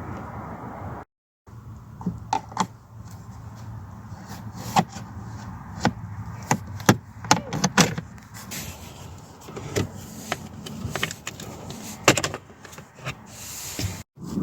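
Irregular sharp clicks and knocks of hands and a tool working loose the plastic trim around a van's steering column and instrument binnacle, over a steady low hum. The sound cuts out completely for a moment twice, once near the start and once near the end.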